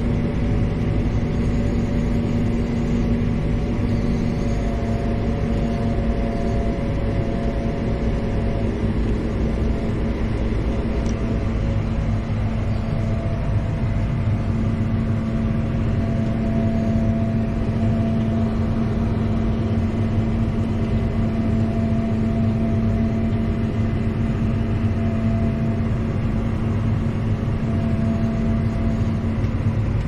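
Tractor engine running steadily under load, heard from inside the cab, a constant drone with a higher whine that fades in and out.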